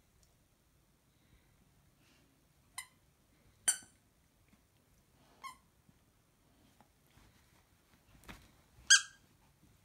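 Plush dog toy's squeaker giving four short, sharp squeaks as the dog bites down on it, the second and last the loudest. A soft thump comes just before the last squeak.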